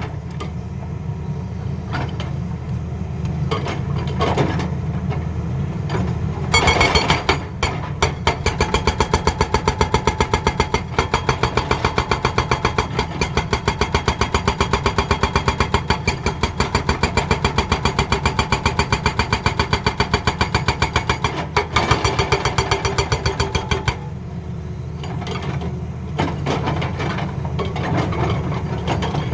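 Tata Hitachi excavator's hydraulic breaker hammering in rapid, even blows over its steady engine running; the hammering starts about a quarter of the way in and stops a few seconds before the end, leaving the engine running.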